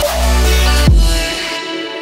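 Electronic background music with a heavy bass line; a bass note slides down just before a second in, and the low bass drops away about one and a half seconds in.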